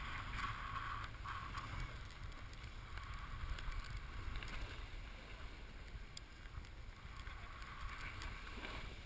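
Snowboard sliding over packed snow, a continuous hiss of the board on the run, with low wind rumble on the microphone.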